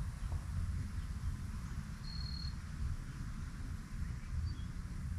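Outdoor insect chirring, typical of crickets, over a steady low rumble, with a single short high peep about two seconds in.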